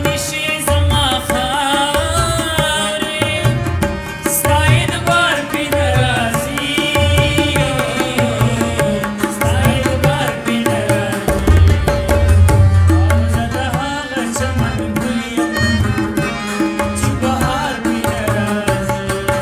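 A Pashto song: a singer's voice over music with a repeating drum beat.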